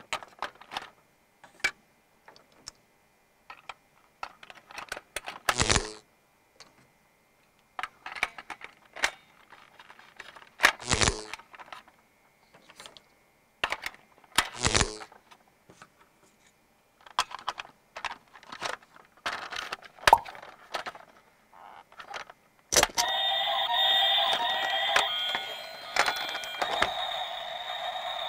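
Plastic clicks, knocks and rattles of a battery-powered toy stunt car being handled, its battery cover opened and AA batteries fitted. About 23 seconds in, a loud electronic tune starts.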